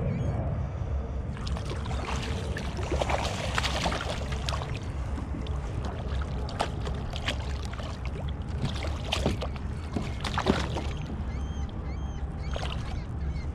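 Schoolie striped bass splashing and thrashing at the surface beside a kayak as it is reeled in, a run of sharp water splashes starting about a second in and dying away near the end. A steady low rumble of wind on the microphone runs underneath.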